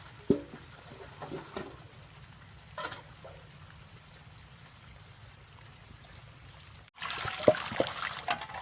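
Water trickling and splashing, with a few light knocks; it turns suddenly louder about seven seconds in.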